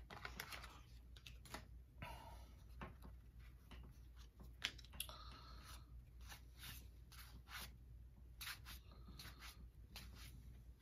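Faint crinkling of a torn paper baseball card pack wrapper being pulled away from the cards, then soft flicks and slides of cardboard trading cards being thumbed through one at a time.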